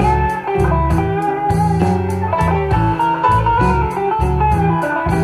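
Recorded music with a strong bass line and a regular beat, played back through a FLUXION NT-6 single-ended 845/211 tube amplifier.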